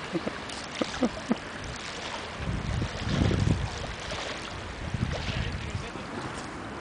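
Wind rumbling on the microphone, strongest from about two and a half to four seconds in, over the wash of wake waves against the riverbank, with a few small knocks in the first second and a half.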